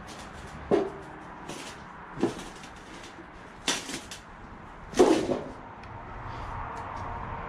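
Footsteps on a debris-strewn dirt and board floor: four sharp knocks about a second and a half apart, the last the loudest.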